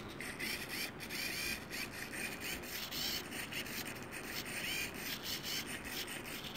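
Small geared motor in a motorized brass ball valve's actuator whirring in short, irregular spurts, starting, stopping and reversing as it is stepped to new positions up to ten times a second.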